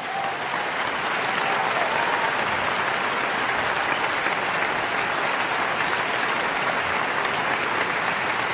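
Applause from many hands clapping, fading in over the first second and then holding steady.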